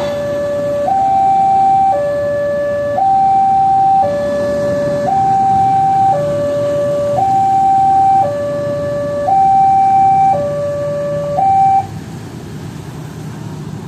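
Two-tone electronic warning alarm alternating between a low and a high pitch about once a second, stopping suddenly near the end. Steady low motor and traffic noise continues underneath.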